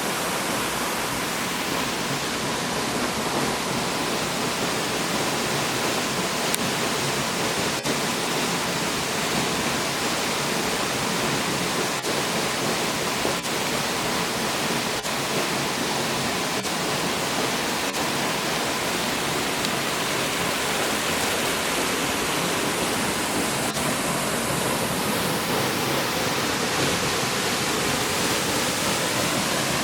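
Steady rush of falling water from the second Finsterbach Waterfall, an even wash of noise without a break.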